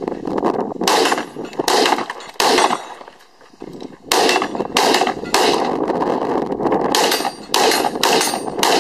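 AR-style rifle fired semi-automatically: about a dozen sharp shots, roughly two-thirds of a second apart, each with a short ring of echo, and a brief pause about a third of the way through.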